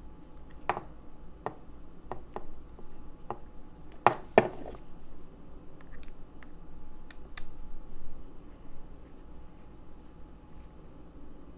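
Scattered small metal clicks and taps as loose screws are backed out of a pin-tumbler lock cylinder and its parts handled, with two sharper knocks about four seconds in.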